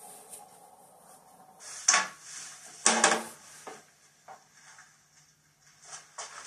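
A few knocks and clattering bangs in a small room, two loud ones about two and three seconds in, the second ringing briefly, then fainter taps.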